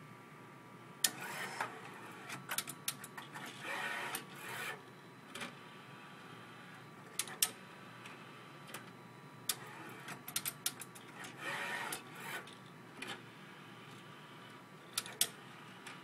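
Rimage robotic CD duplicator at work: its picker-arm motor whirs twice for about a second as the arm travels along its rail, with scattered sharp clicks and clacks from the arm and the disc drive trays.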